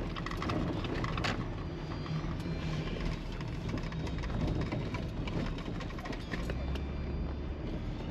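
Jeep Wrangler JL Rubicon on 37-inch Nitto Trail Grappler tyres driving, its engine and tyre noise heard as a steady hum from inside the cabin, with a few light clicks and rattles. The low engine sound grows stronger for about a second near the end.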